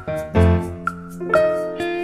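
Background music: keyboard notes that strike and fade, with a light tick now and then.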